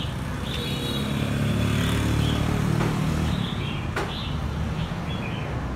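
Low rumble of passing vehicles that swells in the middle and fades, with small birds chirping now and then and one sharp click about four seconds in.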